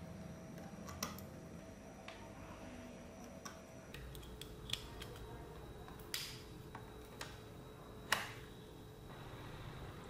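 Faint scattered clicks and taps of jumper wires and a USB cable being handled and plugged into an Arduino Uno board, the loudest click about eight seconds in.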